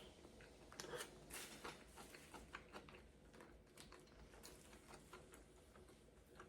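Faint chewing of a quesadilla, with soft scattered mouth clicks, busiest in the first few seconds.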